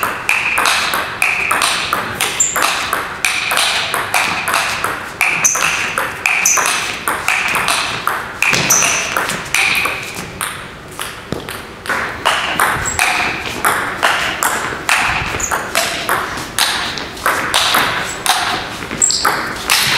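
Table tennis ball hit back and forth in a fast rally: quick, even clicks of the ball off the paddles and the table, several a second.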